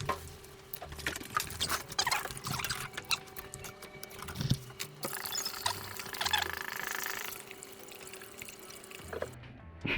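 Liquid being poured, the 50-50 mix of Toyota coolant and deionized water, among scattered knocks and clicks of containers being handled. A steadier pouring rush lasts about a second and a half past the middle.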